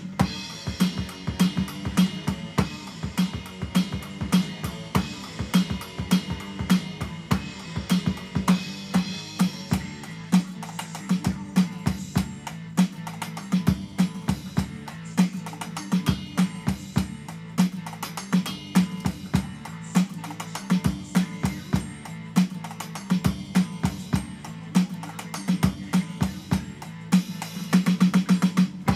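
Electronic drum kit played in an improvised rock groove, with kick drum, snare and rimshots struck in quick, dense strokes.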